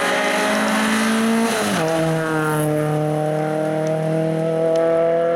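Rally car engine at high revs as the car goes past. Its pitch drops sharply about two seconds in, then climbs steadily as it accelerates away uphill.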